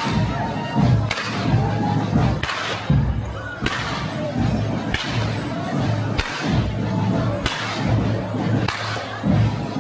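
Karbatschen, the long braided carnival whips of the Hänsele, being cracked in a steady rhythm, a sharp crack about every second and a quarter, eight in all. Low background music runs underneath.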